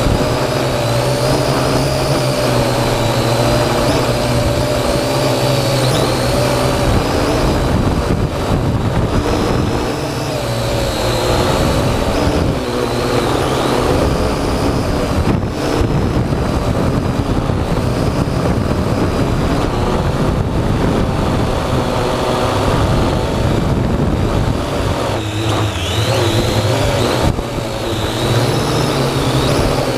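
Parrot AR.Drone 2.0 quadcopter's electric motors and propellers whirring steadily and loudly, their pitch wavering up and down as the motor speeds change, over a low rumble of wind.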